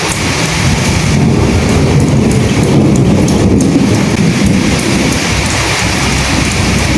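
Steady rain hissing, with a low rumble underneath that comes in at the start, swells over the first few seconds, then eases.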